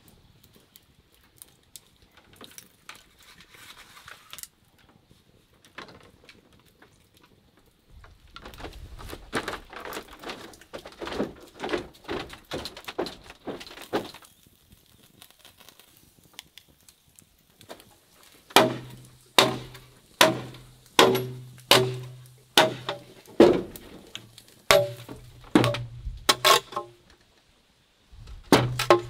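Wood fire crackling under skewered chickens, with a dense patch of crackling in the middle. Then a large knife chops into a green bamboo pole in a steady run of loud, sharp knocks, about three every two seconds.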